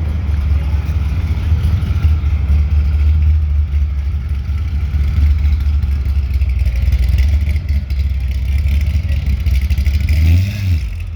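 Chevrolet Corvette Z06 V8 engine idling with a deep, vibrating low rumble, given a short blip of the throttle about ten seconds in.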